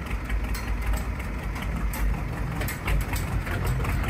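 International 6.9-litre diesel V8 idling through dual 5-inch straight-pipe exhaust stacks with flapper caps: a steady low rumble with light, irregular clicks.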